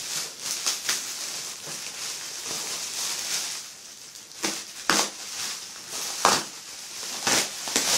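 Bubble wrap crinkling and rustling as it is pulled off by hand, with several louder crackles about halfway through and near the end.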